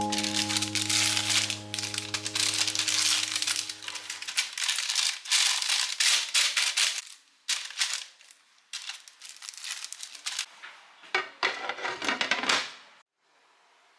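Irregular crinkling and crackling of something being handled, with background music fading out in the first few seconds; it stops shortly before the end.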